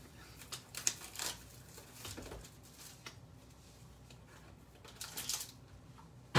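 Hockey card pack being opened and its cards handled: short papery rustles and crinkles, a few scattered over several seconds, with a longer one near the end.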